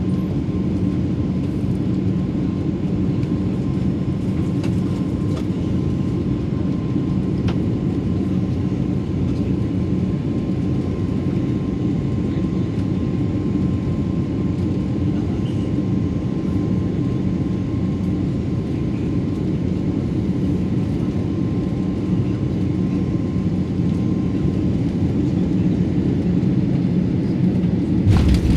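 Steady cabin noise of an Airbus A330-343 descending to land, with airflow and its Rolls-Royce Trent 700 engines making a continuous low rumble and a faint steady whine. A sudden thump comes near the end.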